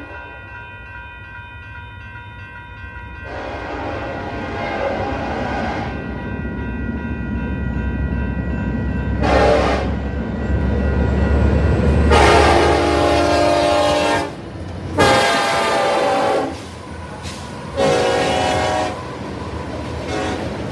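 Union Pacific diesel freight locomotive's air horn sounding five blasts for a grade crossing: a long one, a short one, two long ones and a short one near the end. Under the horn a steady ringing is heard, which is the crossing bell. From about a third of the way in, the rumble of the approaching locomotive's engines grows louder.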